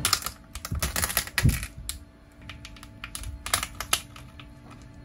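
Kitchen knife cutting through a cooked lobster tail's shell on a plastic cutting board: crackling of the shell and clicks of the blade against the board, a cluster in the first couple of seconds and another about three and a half seconds in.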